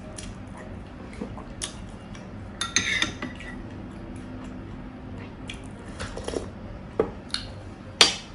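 Metal spoon clinking and scraping against a glass dish while scooping rawon broth, in scattered short clinks, the sharpest one near the end.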